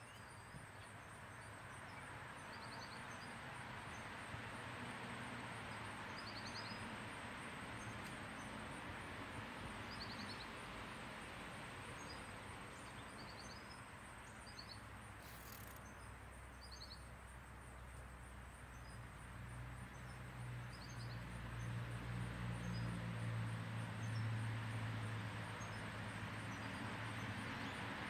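Outdoor ambience: a steady background hiss with a bird's short chirps repeating every couple of seconds and a faint steady high whine. A low engine hum rises in the second half and becomes the loudest sound.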